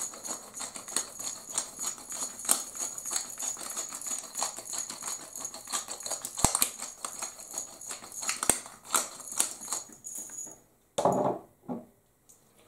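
Hand pepper grinder being twisted, a fast run of gritty clicks grinding black pepper, which stops about ten and a half seconds in, followed by a short thud.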